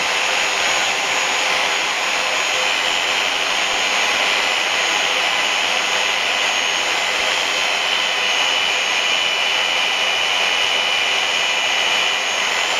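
Triton belt sander running steadily at full speed, a loud even hiss with a high whine, as a mallet of melted HDPE plastic is sanded on the belt.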